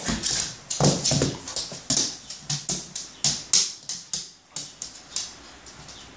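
Dog scrambling and pouncing on a hardwood floor: a quick, irregular run of sharp claw clicks and paw thumps that thins out near the end.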